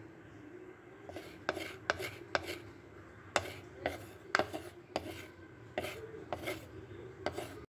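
Wooden spatula scraping against a clay pot, about a dozen short scrapes, as sautéed onions and tomato are scraped out of the pot, over a faint steady hum.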